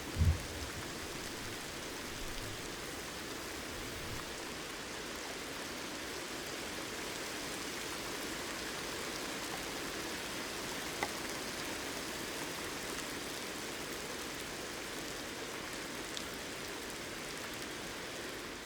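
Steady rain falling, an even hiss, with the tail of a low thunder rumble in the first second.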